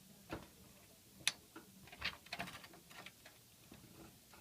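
Scattered light clicks and taps of hard plastic and metal parts being handled: a stock AMD CPU heatsink being worked onto its motherboard retention bracket. One sharp click comes about a second in, then a short flurry of smaller clicks.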